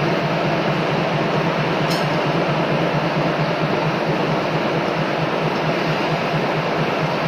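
Machinery running steadily, a constant low hum under a loud even mechanical noise, with a single short metallic clink about two seconds in.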